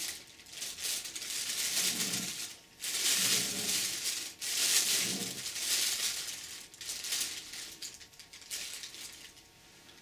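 Thin plastic bag rustling and crinkling in uneven bursts as it is handled and folded around a camera. It is loudest in the middle and dies away near the end.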